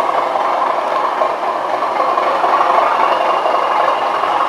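Factory-fitted DCC sound decoder in a Bachmann OO-gauge Class 37 model diesel locomotive playing its diesel engine sound through a newly fitted Roads and Rails 25x25x7 Megabass speaker. The engine sound is a steady growl as the model runs along the track.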